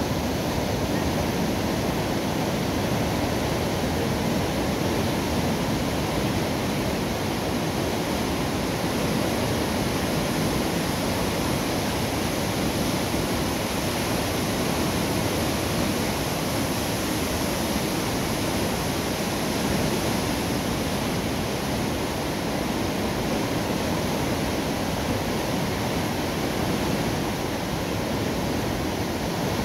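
Steady rush of water flowing at a river lock, unchanging throughout.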